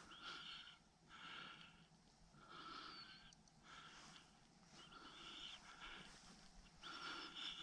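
Faint breathing close to the microphone, soft breaths coming about once a second.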